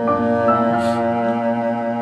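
Recorded music played back over a 300B valve hi-fi system: sustained low bowed-string notes, cello-like, with new higher notes coming in near the start and again about half a second in.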